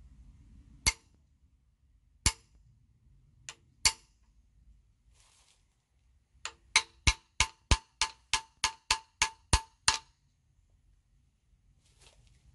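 Small ball peen hammer tapping a steel punch to drift a steel rear sight sideways into a Glock slide's dovetail: a few separate metallic taps, then a quick, even run of about a dozen taps, roughly three a second.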